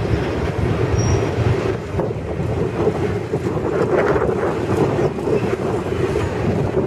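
Double-stack intermodal well cars rolling past: a steady rumble of steel wheels on the rails, with a few knocks as the wheels pass over the track.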